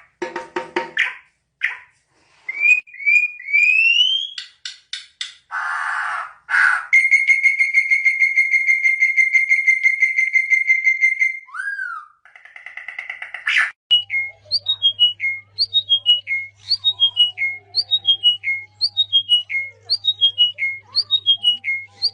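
A string of different whistles and bird-like calls: short rising whistles, then one long steady whistle held for about four seconds. About two-thirds in, a short falling chirp begins, repeated a little over once a second over a low steady hum.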